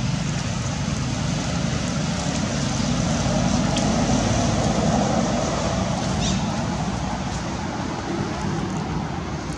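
Steady outdoor rushing noise like passing road traffic, swelling to a peak around the middle and easing off again, with a faint short high chirp a little past halfway.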